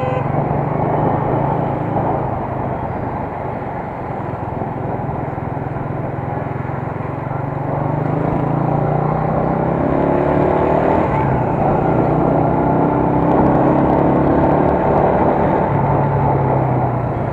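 United US 125 motorcycle's 125 cc four-stroke single-cylinder engine running at low road speed in traffic, getting louder in the second half.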